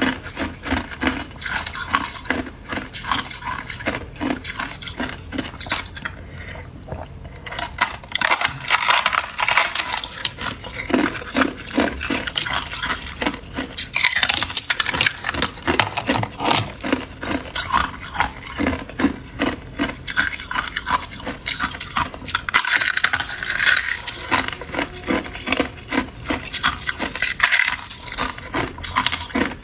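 Hard clear ice being bitten and chewed: crisp cracks as pieces snap off a thin ice sheet, then dense crackling crunches in a steady chewing rhythm.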